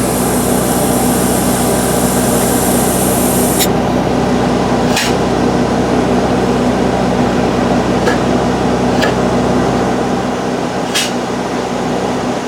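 Polyurethane foam injection rig running with a steady machine hum, and a high hiss of the injection that stops abruptly about three and a half seconds in, followed by a few sharp clicks.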